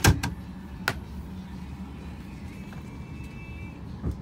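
Sharp clacks of an airliner seat's fold-out tray table being deployed from the armrest: a loud clack at the start and a lighter one about a second in, with a duller thump near the end. Under them runs the steady hum of the aircraft cabin.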